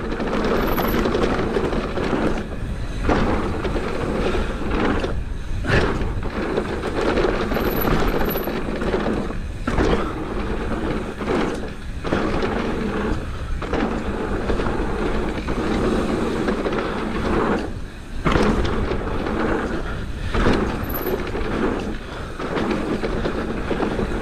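Mountain bike riding fast down a dirt trail: a steady rush of tyre and trail noise with wind buffeting the microphone, dipping briefly a few times.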